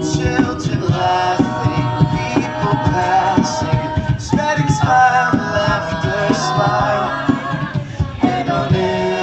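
A five-voice a cappella group sings in harmony through handheld microphones, with beatboxed percussion keeping a steady beat underneath.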